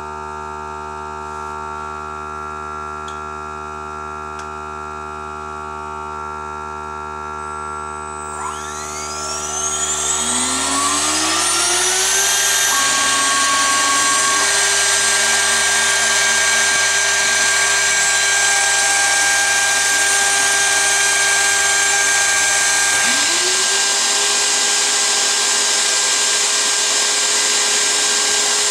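CNC router with its vacuum table's pump running as a steady hum; about eight seconds in the router spindle spins up with a steeply rising whine and settles into a loud steady high whine. Near the end another lower tone rises and holds as the cone bit starts cutting into the film-faced plywood.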